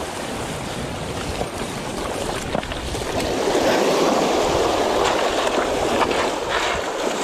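Surf washing in over shoreline rocks, a steady hiss of foaming water that swells for a couple of seconds about halfway through as a wave comes up over the stones, with wind rumbling on the microphone.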